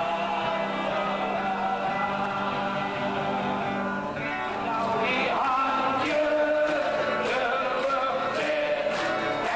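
Music: a song with several voices singing together over accompaniment, with a regular beat of sharp ticks joining about halfway through.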